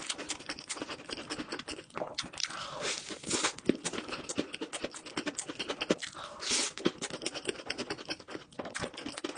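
Close-miked chewing with rapid small crunches and wet clicks, from eating crepe and chocolate bar snacks. Two longer, hissing rustles come a few seconds apart.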